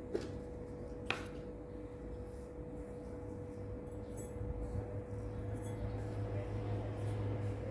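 Two light clinks, one at the start and one about a second in, over a steady low hum that grows louder after about five seconds.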